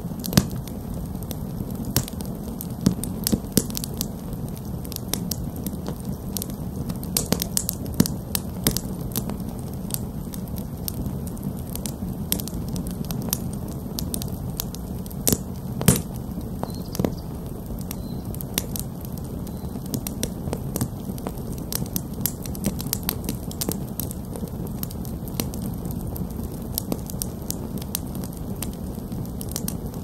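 Wood campfire of split sticks stacked in a teepee, burning briskly: a steady low rush of flame with frequent sharp crackles and pops, the loudest pop about halfway through.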